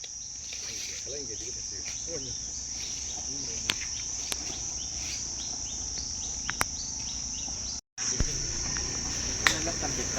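A steady, high-pitched chorus of insects droning without a break. A few sharp clicks sound over it, and the audio drops out for an instant shortly before the end.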